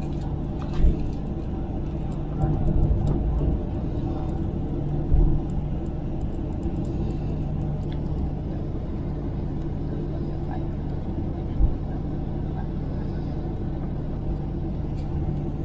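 Steady airliner cabin noise after landing: the low rumble of the jet engines and air system, with a few soft thumps.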